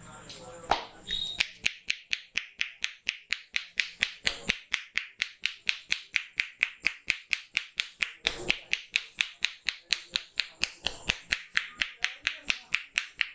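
Rapid, even percussive hand strikes of a head massage, a steady train of sharp claps at about five a second that starts about a second and a half in, after a single snap.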